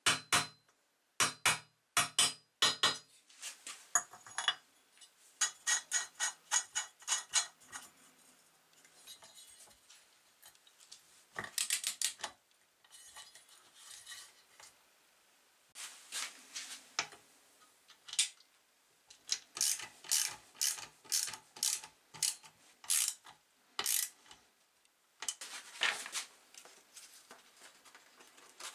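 Socket ratchet clicking in several quick runs as the flywheel nut is tightened, with scattered sharp metal clinks of tools and parts.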